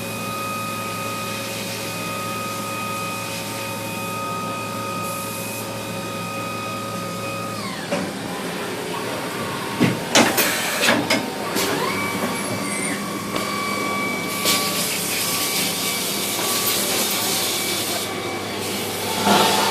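Mazak Nexus 410A vertical machining center running: a steady spindle whine winds down about eight seconds in, a few sharp mechanical clunks follow, then the whine rises and settles again. A high hiss joins it over several seconds near the end.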